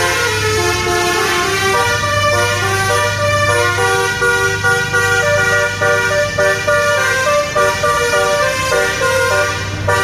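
Basuri telolet horn on a truck playing a quick dangdut-style melody of stepped, held notes, over a steady low drone.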